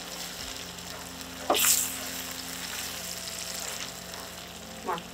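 Diced celery and onion frying in butter in a stainless steel skillet, stirred with a wooden spatula as a pat of butter melts: a steady sizzle, with a brief louder hiss about a second and a half in.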